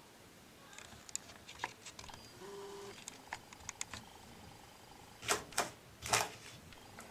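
Scattered light clicks and taps of small plastic enclosures and lids being handled, with three louder short scuffing noises between about five and six and a half seconds in.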